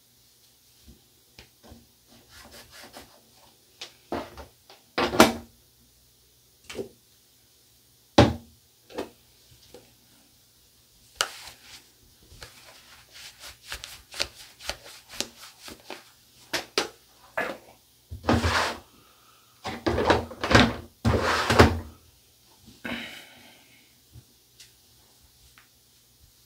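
Terry towel rubbing and patting over a safety razor and a badger shaving brush as they are dried, with irregular knocks and clunks of gear being handled; the loudest stretch is a run of clunks and rubbing past the middle.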